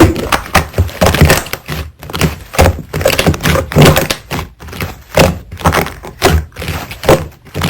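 Slime being pressed and poked by hand, giving an irregular string of sticky clicks and pops, several a second.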